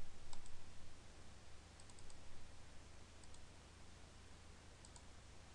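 Computer mouse clicks: a double click, a quick run of about four clicks, then two more double clicks, over a steady low hum.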